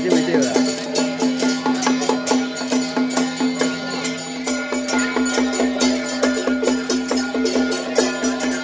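Traditional folk music: a steady droning tone over quick, even percussion beats.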